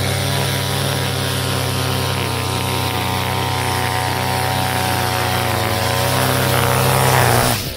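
Gas string trimmer fitted with an Edgit Pro edging wheel, its small engine running steadily at high speed while the line cuts along a concrete curb; it stops abruptly right at the end.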